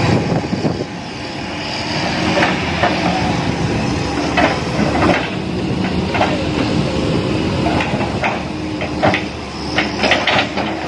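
Hitachi hydraulic excavator's diesel engine running steadily, with scattered short clanks and knocks, several in quick succession near the end.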